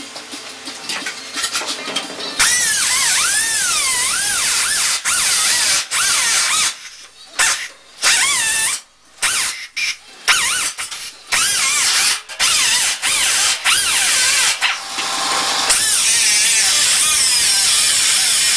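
Pneumatic cut-off wheel cutting the sheet-steel cab floor and kick panel seam of a 1963 Chevy C10. It starts a couple of seconds in and runs in short bursts, its whine sagging and rising as the disc bites into the metal and frees up. A longer steady cut comes near the end.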